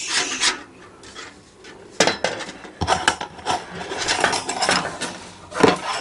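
Thin titanium sheet panels of a camping fire stand being handled and fitted together: metal sheet rubbing and scraping, with a few sharp metallic clicks, the loudest near the end.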